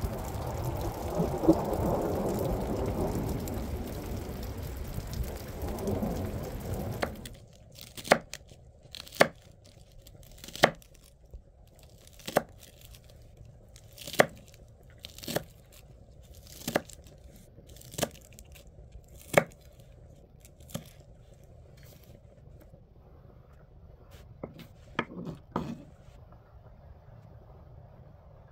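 Steady noise for about the first seven seconds that cuts off abruptly. Then a knife chops on a cutting board in slow single strokes, about one a second, with a few quicker ones near the end.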